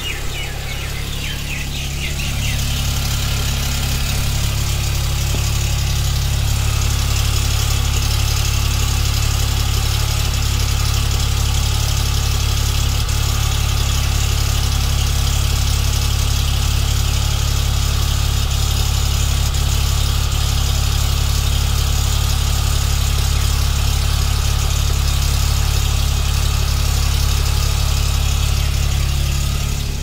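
Hyundai Venue engine idling steadily just after start-up, a little louder from about two seconds in, with the rattling noise the owner gets for 30–40 seconds when starting the car after it has stood some hours; the service centre called it normal.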